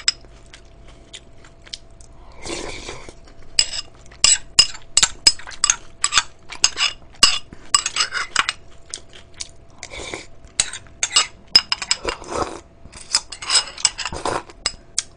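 A metal spoon clinking and scraping against a small ceramic bowl, many sharp ticks, with wet slurping and chewing of cold noodles and broth in between. Near the end she drinks straight from the bowl.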